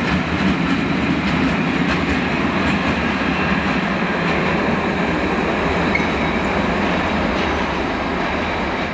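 Freight train of tarpaulin-hooded wagons passing at speed: a steady, loud noise of steel wheels running on the rails.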